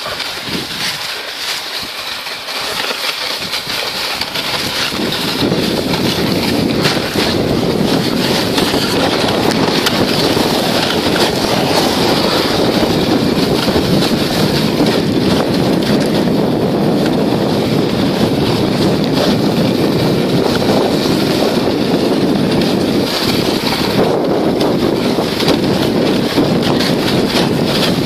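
Wind rushing over the microphone and the hiss of a sledge's runners on packed snow during a fast downhill toboggan run, building over the first few seconds and then steady.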